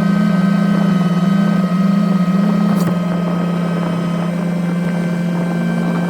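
Engine running steadily at a constant speed, with a steady whine above it.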